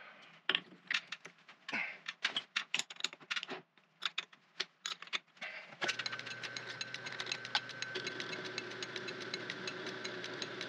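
Scattered metallic clicks and knocks from handling the tailstock drill chuck. About six seconds in, the antique Dalton B4 metal lathe starts running with a fast, even ticking and a steady whine from its drive, as a drill bit in the tailstock is fed into a steel bolt.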